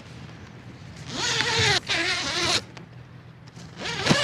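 Zipper on a boom's sail stack pack being pulled open in two long pulls, each a rasping zip of about a second and a half whose pitch wavers with the pull; the second pull starts near the end.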